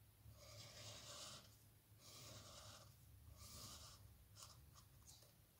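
Faint scratching of a felt-tip highlighter drawn across paper: three strokes of about a second each, then a few light ticks.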